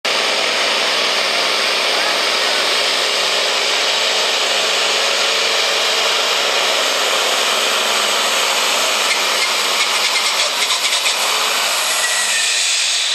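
Altered semi truck's diesel engine running flat out under heavy load as it pulls a weight sled: a loud, steady, dense noise that eases slightly near the end.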